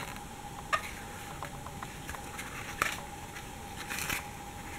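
Faint handling noise of a paper model bus in the fingers: a few soft taps and rustles of paper and card, over a faint steady hum.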